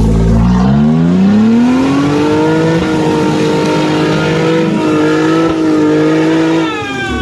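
An off-road 4x4's engine revving up over about three seconds and held at high revs, then dropping off near the end.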